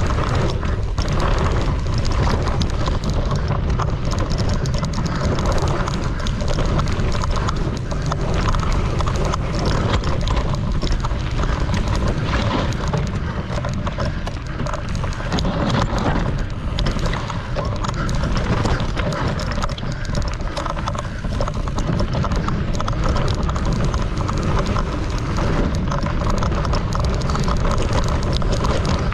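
Mountain bike riding a dry dirt trail: tyre rumble with constant rattling and knocking from the bike over roots and bumps, under heavy wind buffeting on an action camera's microphone.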